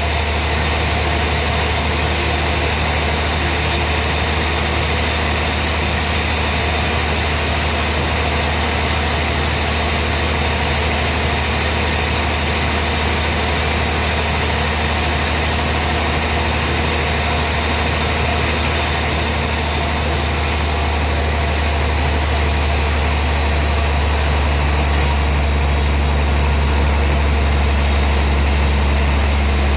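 Sawmill machinery running steadily: a constant low hum with a broad hiss over it, getting slightly louder in the last few seconds.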